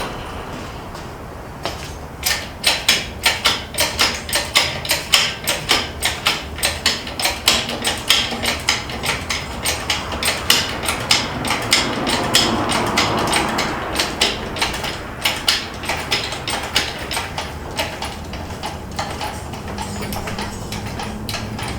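A fast, even series of sharp clicks or knocks, about three a second, that goes on for about fifteen seconds and fades out near the end.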